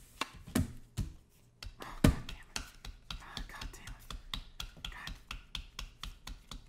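Soft, quick hand claps: light patting of palms in an even rhythm of about three a second, after a couple of louder claps in the first two seconds.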